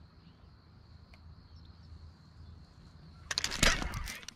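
Quiet open-air background with a faint steady high tone. About three seconds in comes a loud burst of rustling, clicks and a low bump: gear or the camera being handled close to the microphone as the angler turns.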